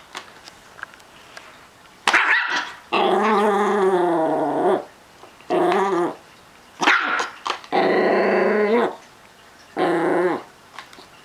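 Small Chihuahua–Miniature Pinscher mix dog growling and barking in about six separate outbursts, two of them long growls of over a second with a wavering pitch. This is possessive growling over his treats.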